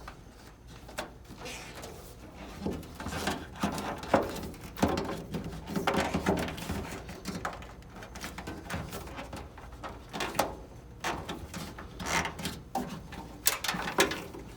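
Irregular knocks, clicks and rustling of hands working a car's wiring harness, feeding and routing it through the body panels, with a few sharper knocks.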